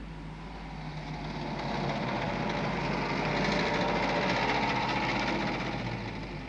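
A motor vehicle going by: a steady engine-and-road noise that swells over a couple of seconds and then fades.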